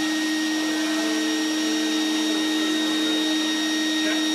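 ShopBot Desktop CNC router milling a wooden workpiece: the spindle and the dust-collection shop vacuum on its hose run together as a steady whine with a strong hum.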